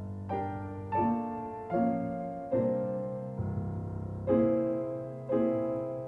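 Solo piano playing slow chords over a held bass, a new chord struck about once a second and each ringing and fading before the next.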